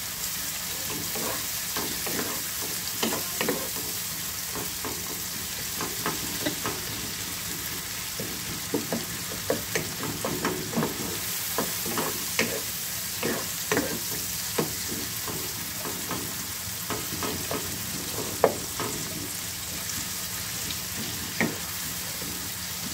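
Chopped onions and tomatoes sizzling in hot oil in a non-stick wok, frying down until the tomatoes soften. A wooden spatula stirs and scrapes against the pan in short, scattered knocks, one louder past the middle.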